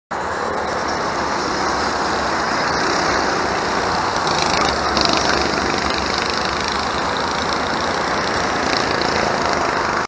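Go-kart engines running on a racing circuit, a steady mechanical noise with no clear pitch.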